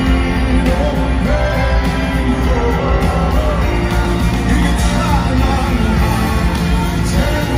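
A live rock band playing loudly over a large hall's sound system, with a singing voice over the band, heard from within the audience.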